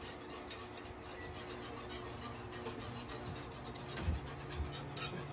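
A metal whisk scraping steadily around a skillet of thickening white gravy as milk is whisked in, a continuous rasping stir. A couple of soft low knocks come about four seconds in.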